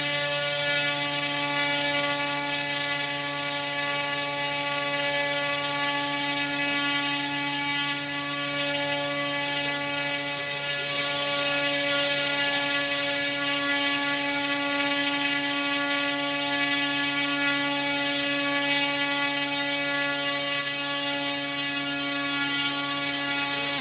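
Brushless electric motor spinning a 14x4.7 propeller at a steady high speed on a thrust test stand, making a loud, steady buzzing drone with one strong pitch, pulling about 3.3 kg of thrust.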